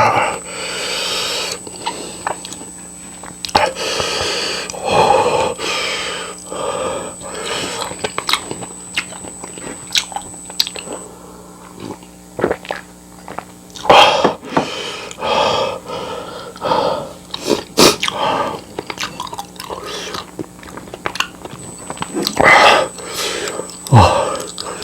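Close-miked eating: chewing and biting with many sharp wet mouth clicks, broken several times by louder drawn-out mouth sounds lasting about a second.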